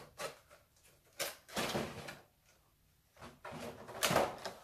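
Stiff plastic packaging trays being handled, crinkling and knocking in several short bursts, the loudest near the end as a tray is lifted.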